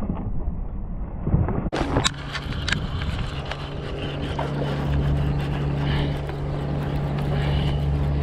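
A steady low motor-like drone with wind rumbling on the microphone. The sound changes abruptly just under two seconds in, followed by a few sharp clicks.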